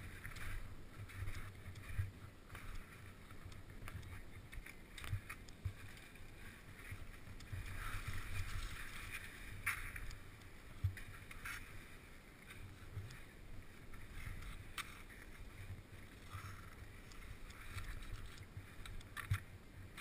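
Fischer skis sliding and scraping over snow, the hiss swelling and easing, over a low wind rumble on a helmet-mounted camera. A few sharp knocks come about halfway through.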